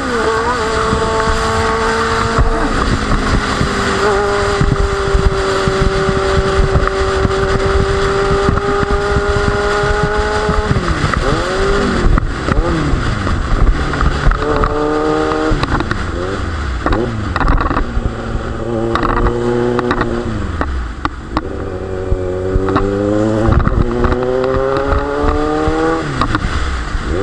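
Kawasaki Z900's inline-four engine through an Akrapovic exhaust, under way at speed. It holds steady revs for several seconds, drops off, then revs climb again in repeated rises near the end, over wind rushing across the microphone.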